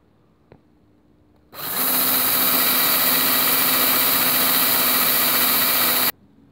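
A drill spins an abrasive brush wheel against a rusty steel wheel rim, scrubbing the rust down to bare steel. It starts about a second and a half in, runs as a steady harsh scrubbing over the drill motor's hum, and stops suddenly near the end.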